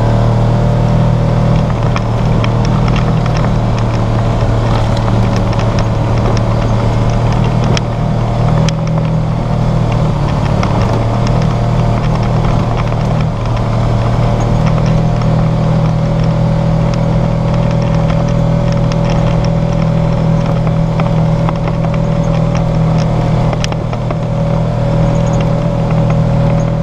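Side-by-side UTV's engine running steadily under way, holding an even pitch, with scattered light ticks and rattles.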